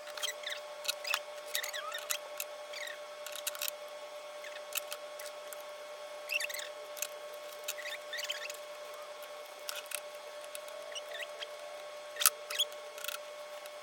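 Battery chainsaw being cleaned by hand: irregular short scratchy scrapes and squeaks with sharp clicks and taps as packed-in tree debris is worked out of it, over a steady faint hum.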